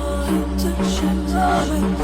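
Electronic background music with a steady beat, bass and a synth melody.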